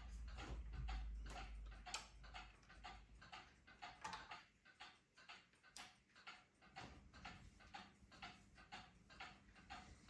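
Casablanca ceiling fan running, with a faint rhythmic ticking of about three ticks a second from its bad ball bearings, spoiled by oil. A low hum fades out in the first few seconds, with a sharper click about two seconds in.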